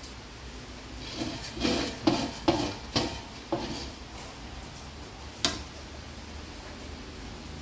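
A ceramic plate scooping cooked rice and knocking against metal cooking pots: a quick run of about five knocks and scrapes over two seconds, then one sharp clink a couple of seconds later.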